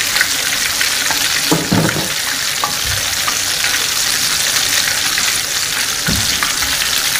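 Balls of mashed tofu deep-frying in hot oil in a wok: a steady, dense sizzle of bubbling oil, with a couple of brief low thumps about one and a half and six seconds in.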